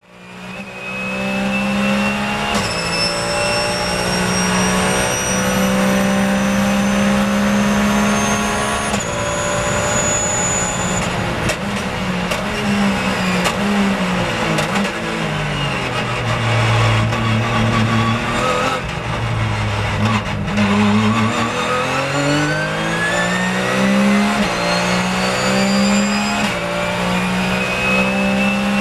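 Porsche 911 GT3 Cup race car's flat-six engine at racing speed, heard onboard, fading in at the start. It pulls hard with quick gear changes, falls in pitch through downshifts about halfway as the car slows, then climbs steadily again as it accelerates.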